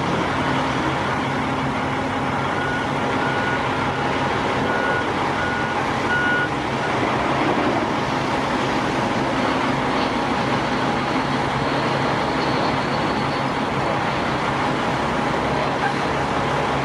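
Heavy construction vehicle engine running steadily, with a reversing alarm beeping repeatedly for about the first six seconds.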